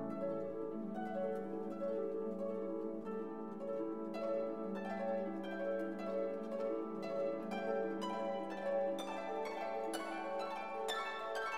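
Background music of plucked, harp-like strings over held notes, with the plucking growing busier and brighter in the last few seconds.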